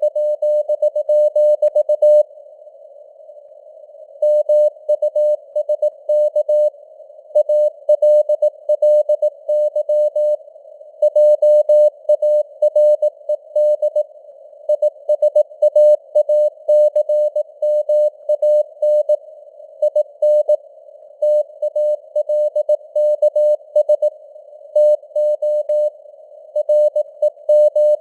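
Morse code (CW) sent at 18 words per minute as a single steady beep tone keyed on and off in dots and dashes, with short gaps between words. It sits in a narrow band of simulated radio hiss, with the signal strength varying (QSB).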